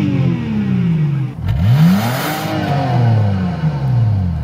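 Car engine being revved with no load: the pitch falls away, climbs sharply about a second and a half in, then falls back again.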